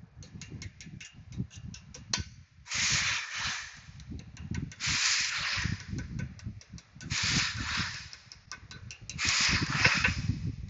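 Small hammer tapping a pin punch to drive the brake pad retaining pin into a brake caliper: many light, sharp taps, some in quick runs. Four louder hissing bursts of about a second each come between and over the taps.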